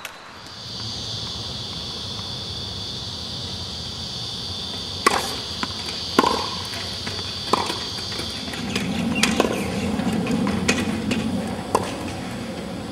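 Insects keep up a steady high-pitched drone for the first eight seconds or so. Over it come a few sharp knocks of tennis ball hits and bounces, about a second apart in the middle, with another near the end. A low rumble swells in the last few seconds.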